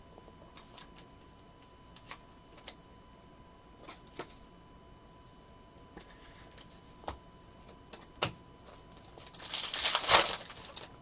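Trading cards and packs being handled by hand: scattered light clicks and taps as cards are flipped and set down, then a louder rustle near the end.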